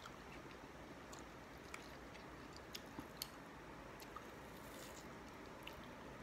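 Faint chewing and biting on mango slices, with a few short crunchy clicks from the mouth scattered through.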